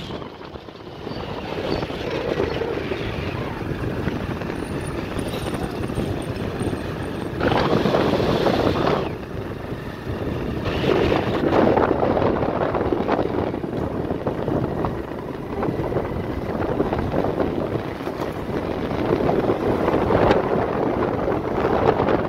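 Wind rushing over the microphone of a moving vehicle, mixed with the vehicle's engine and road noise, swelling in louder gusts several times.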